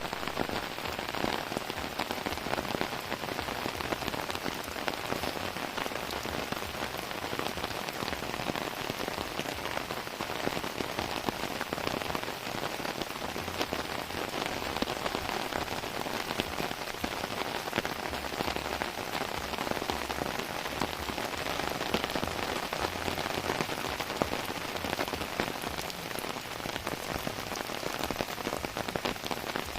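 Heavy rain falling steadily, a dense patter of drops hitting surfaces close by.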